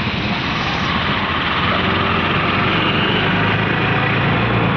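Auto-rickshaw riding through city traffic: its small engine running under a steady rush of road and traffic noise, heard from inside the open-sided cabin.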